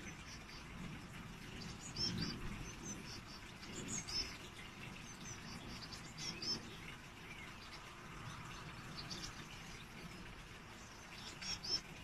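Small garden birds chirping in short, high, scattered calls, with gaps of a second or more between them, heard faintly over a low background rumble.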